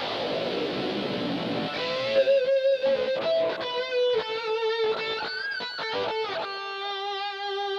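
Electric guitar, a gold-top Les Paul type: a strummed chord rings out and fades, then a single-note lead line with vibrato and bends comes in about two seconds in, ending on a long held note.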